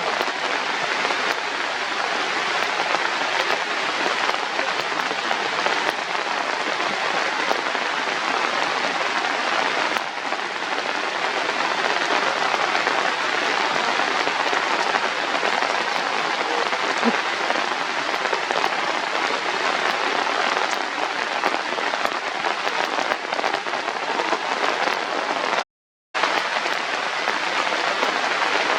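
Steady hiss of rain falling on surfaces, with a brief cut to silence about 26 seconds in.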